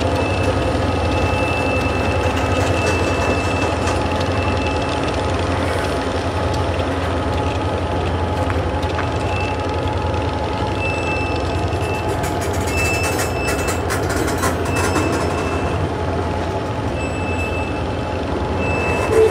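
Freight train of covered grain hopper cars rolling slowly past behind EMD diesel locomotives, with a steady low engine hum. A high-pitched wheel squeal comes and goes, held for a few seconds early on and then in short bits.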